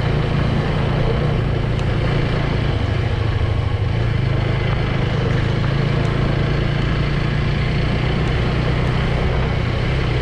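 Motorbike engine running at a steady pace while riding, with a constant low hum over road and wind noise.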